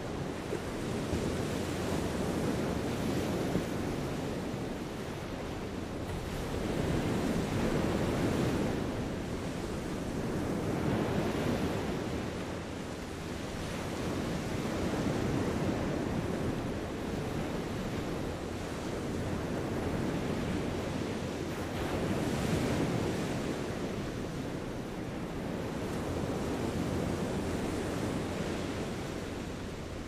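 Gentle sea waves breaking and washing ashore, swelling and fading every few seconds, with some wind on the microphone.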